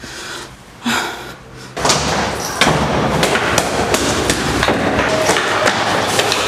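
Loud, continuous rapid banging and thumping begins about two seconds in.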